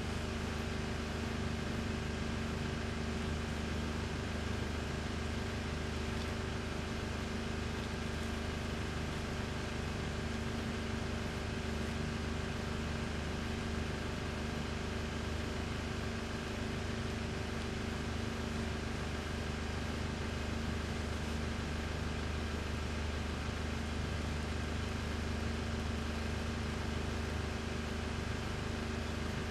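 Steady background hum of a machine or ventilation in a workroom: a low drone with a few constant tones over a soft hiss, unchanging throughout. The hand stitching itself is not heard.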